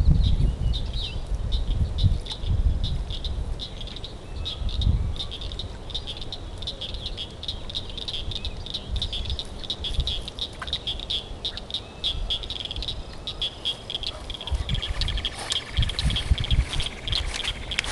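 A steady chorus of rapid, high-pitched chirping calls from small pond-edge animals, running without a break, with low rumbling thumps on the microphone mostly in the first few seconds.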